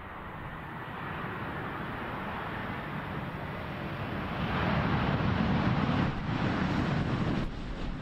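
Airbus A380-861 rolling out on the runway just after touchdown, the rumble of its four Engine Alliance GP7270 turbofans growing louder as it passes close by. Loudest in the second half, it eases off a little near the end.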